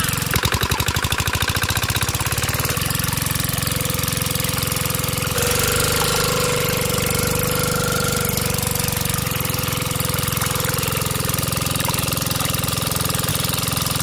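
Small stationary pump engine running with a rapid, even knocking chug, quickening over the first couple of seconds as it settles. From about five seconds in a steady whine runs alongside.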